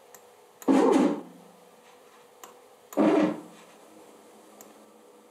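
Stepper motors of a DIY CNC machine making two short jog moves, each about half a second long with a pitched buzz, and faint clicks between them.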